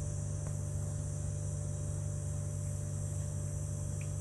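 Steady low hum with an even, high insect drone behind it, unchanging throughout.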